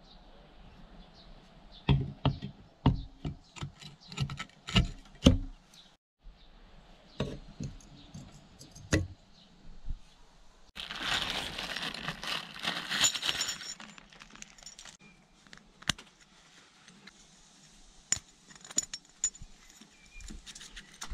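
Metal parts of a small two-stroke engine being handled and set down on a wooden workbench: scattered clicks, knocks and clinks, with a couple of seconds of metallic jingling rattle about halfway through.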